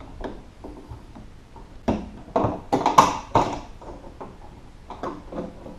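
A tool prying a small lock-rod guide loose inside a car door: a quick run of sharp clicks and knocks about two seconds in, the loudest about three seconds in, then a few fainter ticks near the end.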